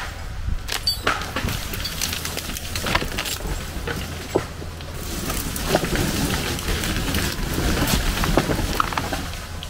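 Dry twigs and woody debris crackling and snapping many times, denser and louder in the second half, over a steady low engine hum.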